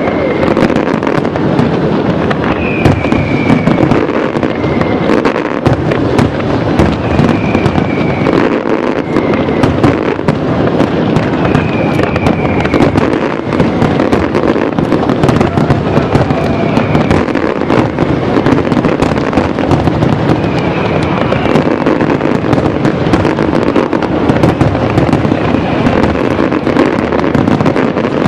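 Fireworks display: aerial shells bursting in a dense, unbroken barrage of bangs and crackle. A short, high, slightly falling tone comes back every couple of seconds.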